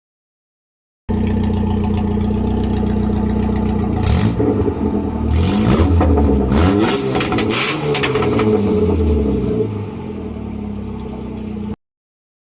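Ford Escort RS engine idling, then revved several times with the pitch rising and falling, then back to a steady idle. The sound cuts off abruptly near the end.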